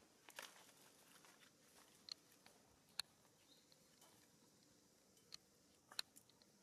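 Near silence broken by a few sharp clicks and soft rustles, the loudest about three seconds in and again about six seconds in, as macaques eat fruit and shift about on dry leaves.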